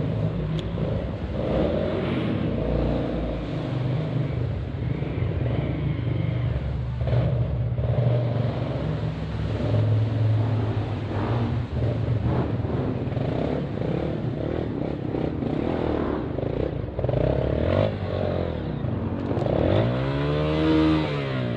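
Motorcycle engine running at low revs, its pitch wavering with the throttle, then revving up and back down about twenty seconds in.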